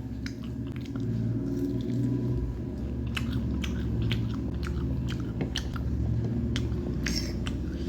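Close-miked mukbang eating: a person biting and chewing food, with many short crunchy clicks.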